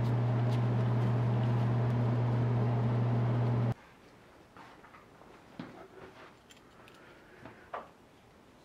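A loud, steady low hum that cuts off abruptly a little over a third of the way in. It gives way to a few light clicks and taps of a hex key being worked against the lathe's metal cross slide.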